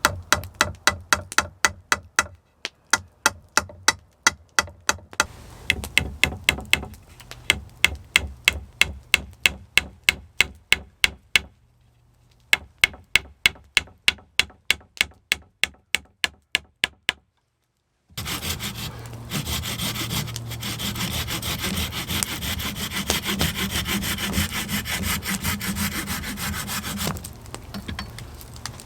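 A long run of sharp wooden knocks at about three a second, in short bursts. Then, after a brief drop-out, a hand saw cutting through wood with fast continuous strokes, fading near the end.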